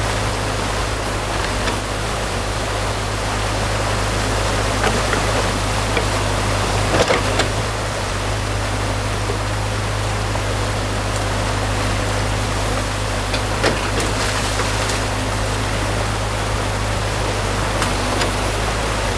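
Muddy water rushing through a freshly breached beaver dam, over the steady running of a mini excavator's diesel engine. A few short knocks stand out as the bucket works into the branches and mud.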